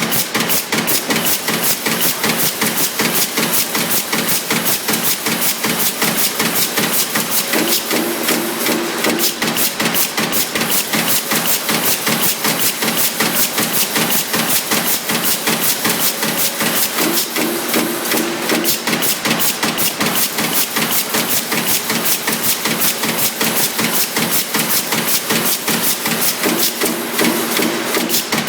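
Sheet-metal press hitting in a rapid, steady rhythm of several strokes a second. A short hum comes back about every nine seconds.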